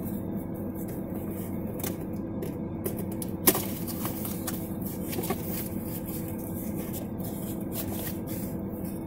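Cardboard mailer box being handled and opened: scattered rustling and scraping of cardboard flaps, with a sharp snap about three and a half seconds in, over a steady low hum inside the car.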